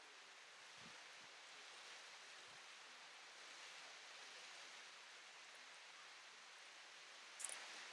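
Faint, steady rushing of a waterfall. A single brief sharp click or knock sounds near the end.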